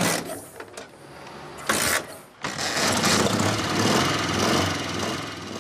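Flat-twin engine of an old Ukrainian military sidecar motorcycle: two short loud bursts, then from about two and a half seconds in it runs steadily.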